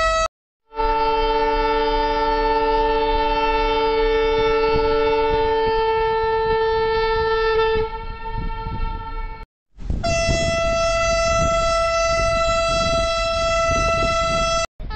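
Ship horns sounding long farewell salute blasts. Several horns blow together in a chord for about seven seconds, with the lower ones dropping out partway. After a short break a single higher horn is held for about five seconds.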